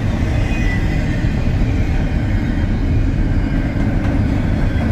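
BNSF double-stack intermodal freight train rolling past, its loaded container well cars making a steady rumble.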